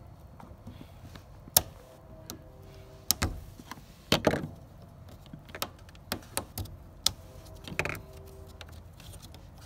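Irregular sharp clicks and clacks of pliers and fingers working the plastic retaining clip on a car's in-tank fuel pump wiring connector. There are short rattling scrapes about four seconds in and again near eight seconds.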